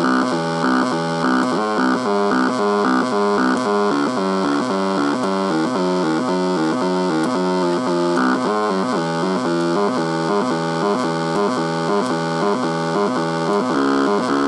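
Stepper motor of a solvent pump heard through an electric guitar pickup, giving an electronic, synth-like buzz of pitched tones that jump from note to note several times a second in a choppy rhythm.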